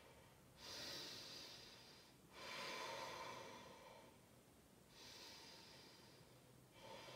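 A woman's faint, slow breathing: three long breaths, each starting suddenly and trailing off.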